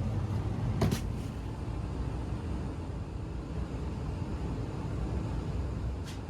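Payne gas furnace running in heat mode: a steady low rumble, with one sharp knock a little under a second in.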